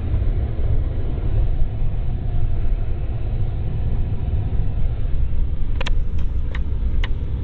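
Truck driving slowly through snow: a steady, loud low rumble of engine and tyres, with a few sharp clicks or knocks near the end.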